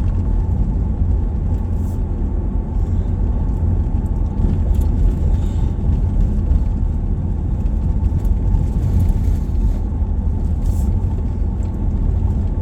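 Steady low rumble of a vehicle being driven, engine and road noise heard from inside the cab.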